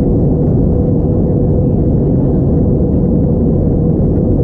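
Airbus A321-231 cabin noise in flight: the IAE V2500 engines and the airflow over the fuselage make a steady, loud low drone with a faint held hum in it.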